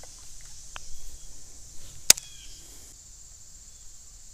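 One sharp click about two seconds in, with a few fainter ticks around it, from fishing tackle being handled. Under it runs a steady high drone of insects.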